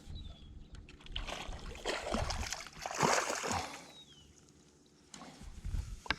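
Water splashing and sloshing against a small boat in a few uneven bursts, the loudest about three seconds in, with a few sharp knocks near the end.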